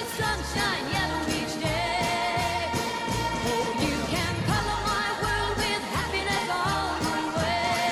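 Pop song playing: a singer over a steady bass beat.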